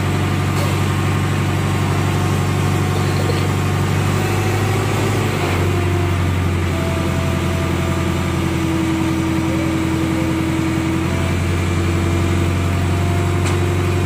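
Diesel engine of a hydra pick-and-carry crane running steadily while it works the boom hydraulics to lift a heavy load. The engine note shifts about five and a half seconds in and changes back around eleven seconds.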